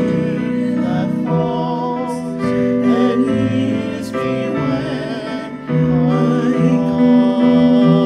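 A woman singing a hymn solo, accompanying herself on a Korg Triton Le electronic keyboard, with long held notes over sustained chords.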